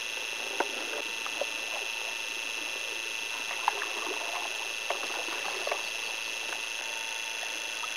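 Canoe paddling: scattered faint taps and small splashes of paddles working the water, over a steady high-pitched whine.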